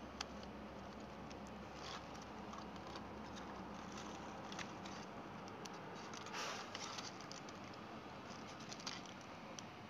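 Cooked blue crab being pulled apart by hand: faint scattered cracks and clicks of shell breaking, with crinkling of the foil and plastic underneath and a brief longer rustle about six and a half seconds in.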